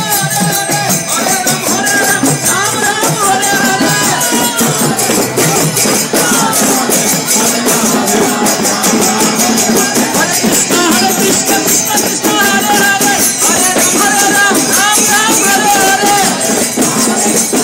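Kirtan, devotional chanting: amplified singing over a group of voices, to a steady, fast clash of hand cymbals (karatalas).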